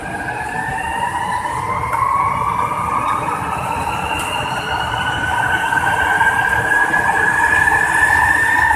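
Electric traction whine of an MRT-3 CKD Tatra four-car light rail train accelerating away. The whine climbs steadily in pitch over a low rumble and grows louder toward the end.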